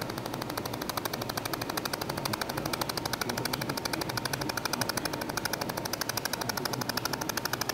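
Pulsed laser welder firing a rapid, even train of sharp clicks, about ten a second, as it lays P20 modified filler wire into the engraving of a steel injection mold.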